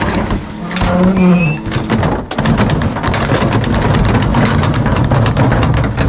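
A garbage truck's engine running under its hydraulic cart tipper, which lifts a plastic recycling cart and dumps it into the hopper, with a falling whine about a second in; bottles, cans and cardboard clatter and knock into the steel hopper.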